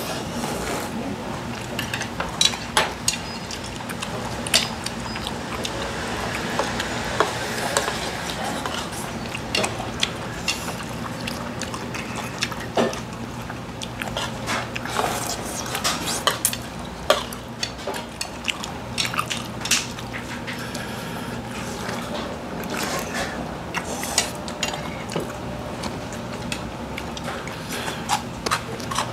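Eating spicy noodles: chopsticks and spoon clicking and scraping against the bowls as the saucy noodles are stirred and eaten, in many irregular sharp clicks over a steady low hum.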